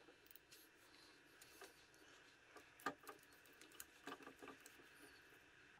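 Near silence with faint, irregular small plastic clicks and rustles from a thin nylon zip tie being handled and threaded around an ignition coil pack's wiring-harness connector, with one sharper click about halfway through.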